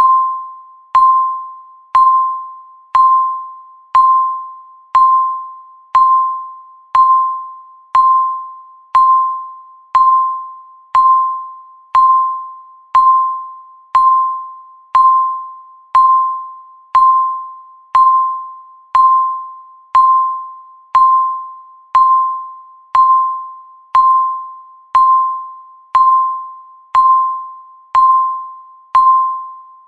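Countdown timer's electronic beep ticking off the seconds: one mid-pitched ding each second, striking sharply and fading away before the next.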